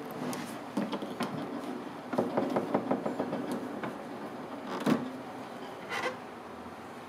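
Small clicks and rattling handling noise, then a sharp thump about five seconds in as a Haier mini fridge's door is pulled open, followed by a softer knock about a second later.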